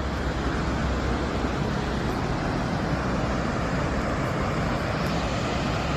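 Steady rush of Cumberland Falls, a large waterfall: an even, unbroken noise with a strong low rumble.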